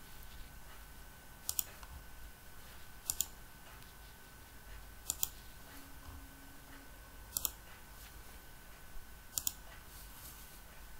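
Computer mouse button clicking five times, a couple of seconds apart, each click a quick double tick, over a faint steady hum.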